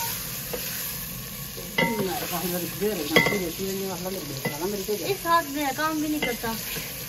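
Chopped green vegetables frying in an aluminium pot, sizzling, while a metal ladle stirs and scrapes the pot with a few sharp ticks. From about two seconds in, wavering pitched sounds rise and fall over the frying.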